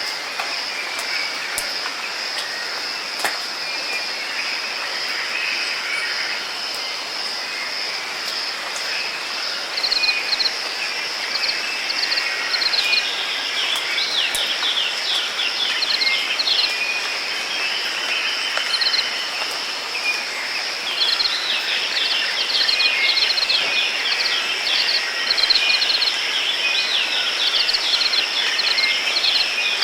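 Outdoor nature ambience: a steady, high-pitched insect drone over an even hiss. A bird sings fast runs of short falling chirps from about ten seconds in, and again more continuously through the second half.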